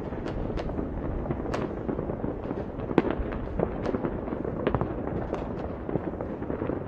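New Year's Eve fireworks going off far and wide across a city: a continuous rumble of many rockets and firecrackers, with frequent sharp cracks and bangs, the loudest about three seconds in.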